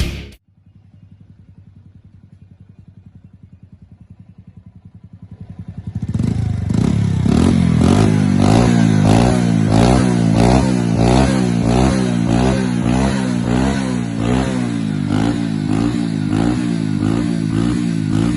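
Honda C90 single-cylinder four-stroke engine breathing through an aftermarket GPR-style full exhaust system. It idles quietly for about five seconds, then gets much louder and is revved in quick repeated throttle blips, about two a second.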